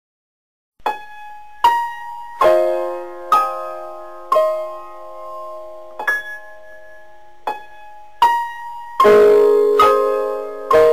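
Slow solo piano music begins just under a second in: single notes and chords struck about once a second, each left to ring and fade, with fuller chords near the end.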